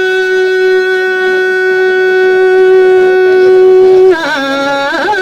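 One long, steady held musical note, very loud, that drops in pitch about four seconds in and then wavers up and down.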